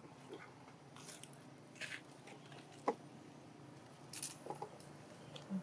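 A few faint, short clicks and rustles over a quiet background, the sharpest click about three seconds in and a brighter rustle about four seconds in.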